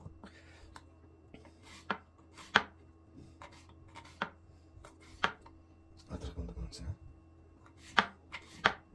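Knife chopping fresh ginger root: about eight sharp, irregularly spaced cuts, with a rougher scraping patch around six seconds in.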